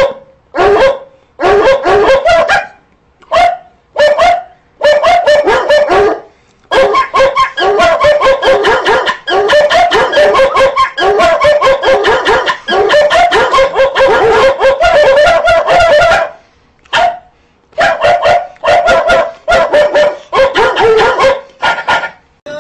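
A dog yapping and yelping in rapid high-pitched runs, with short breaks between the runs, very loud throughout.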